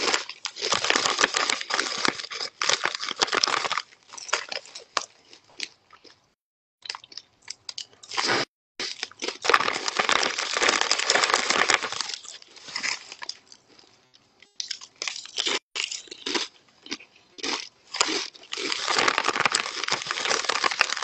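Chips crunching as they are chewed close to the microphone, mixed with a foil chip bag crinkling as a hand rummages in it. The sound comes in three loud stretches with quieter gaps between.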